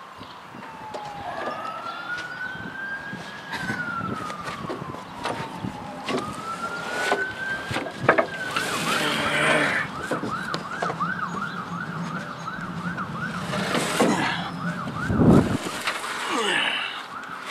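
Emergency-vehicle siren: a slow wail rising and falling twice, switching about eight seconds in to a fast yelp that runs for several seconds. Scattered knocks and a heavy thump near the end come from the steel mower deck being shifted.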